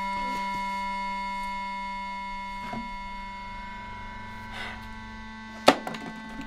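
A steady drone of several held electronic tones. Near the end comes one sharp clatter as a small bottle is tossed onto concrete.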